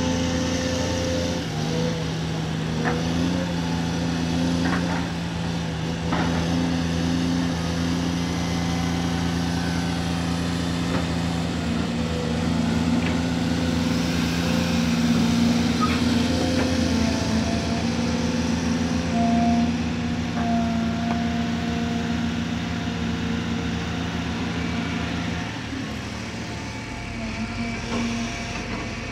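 Cat 340D2 L hydraulic excavator's diesel engine running with a steady drone while it works, with a few faint knocks in the first seconds. Near the end one engine tone drops out and the sound gets a little quieter.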